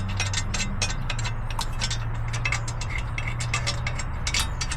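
Hand socket ratchet clicking in quick, irregular strokes while a brake caliper bolt is run in, over a steady low hum.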